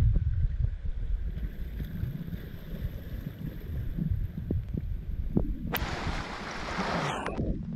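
Wind rumbling on the microphone over shallow shore water washing among rocks, with a few light knocks. About six seconds in, a rush of water swells for nearly two seconds and fades.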